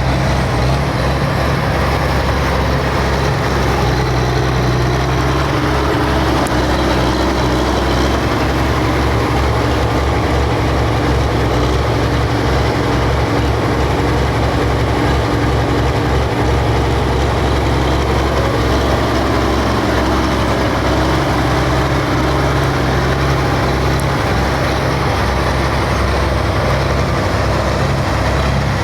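Diesel engine of a Pro Farm pulling tractor running loud and steady, with no marked rise or fall.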